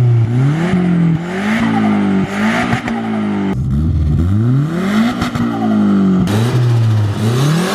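Nissan Silvia S14's turbocharged SR20 four-cylinder, fitted with an external wastegate and a Varex muffler, revving up and falling back several times, with a rushing hiss over the engine note. The sound changes abruptly twice, as if in separate short takes.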